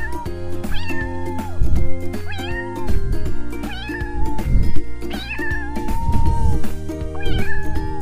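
A domestic cat meowing repeatedly, about seven meows roughly a second apart, some short and some drawn out, over background music.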